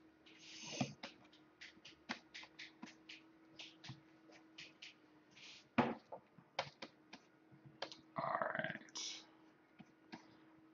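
Computer keyboard keys clicking irregularly, often several a second, as shortcut keys are pressed while painting. A few short breath noises come near the start, in the middle and near the end, over a faint steady hum.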